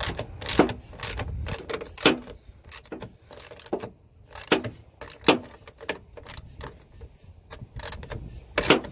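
Hand tools and metal parts clinking and knocking during radiator work on a truck, in an uneven string of about ten sharp knocks.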